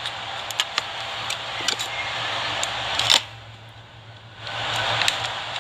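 A steady hiss that cuts off suddenly about three seconds in and starts again about a second later, with small sharp clicks scattered throughout.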